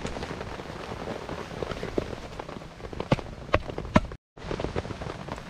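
Rain pattering steadily, and about three seconds in, three sharp light taps on an upturned metal camp cooker of just-cooked rice, tapped with a gloved hand. The sound drops out for a moment just after the taps.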